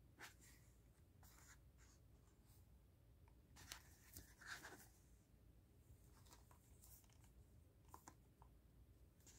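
Faint handling noise of plastic DVD cases: scattered soft rubs and light clicks as the cases are picked up, turned over and slid against each other, busiest around four seconds in.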